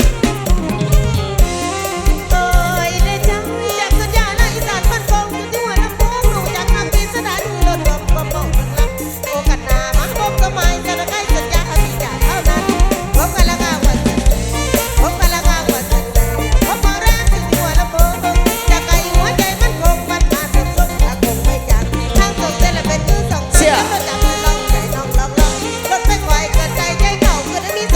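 Live mor lam band music, with a heavy, pounding bass and drum beat under a fast melodic line.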